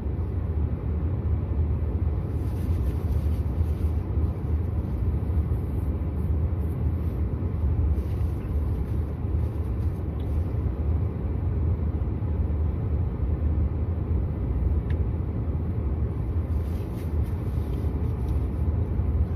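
Steady low rumble of a truck with its engine running, heard from inside the cabin.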